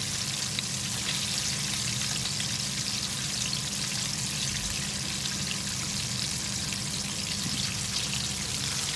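Chicken pieces deep-frying in hot oil in a frying pan: a steady crackling sizzle, with a steady low hum underneath.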